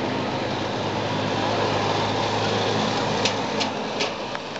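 Small red vintage tractor's engine running steadily as it drives past at low speed, with a few sharp clicks near the end.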